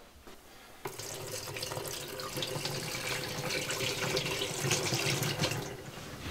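Water poured from a cup into the bowl of an Air Head composting toilet, splashing and trickling down the liquids drain. It starts about a second in and tapers off near the end. The pour tests the water flow of the liquids line plumbed to the black tank.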